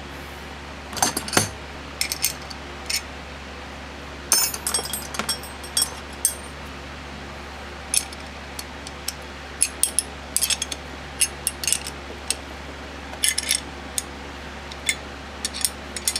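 Small metal parts and tools clinking and tapping on a hard surface: irregular sharp clicks that bunch up about a second in, around four seconds in, and again near thirteen seconds, with scattered single clicks in between. A steady low hum runs underneath.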